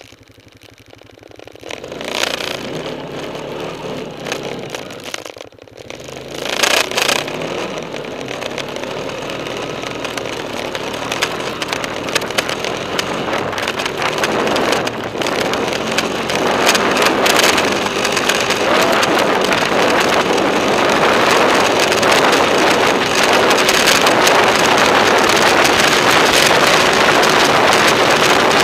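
Honda TRX420 quad's single-cylinder four-stroke engine running as the ATV rides across snow, under a dense rushing noise. The sound starts quiet and grows steadily louder as the quad picks up speed.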